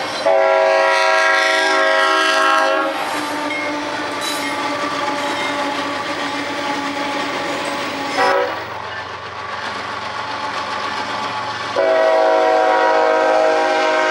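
Diesel locomotive horn sounding a long chord, then the rumble and rail noise of a passing freight train, and a second long horn blast near the end.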